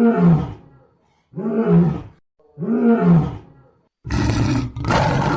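Lion roaring: three separate roars, each under a second, rising then falling in pitch. From about four seconds in comes a longer, rough, noisy growl.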